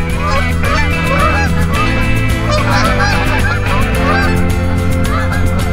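A flock of Canada geese honking in flight, many overlapping calls one after another.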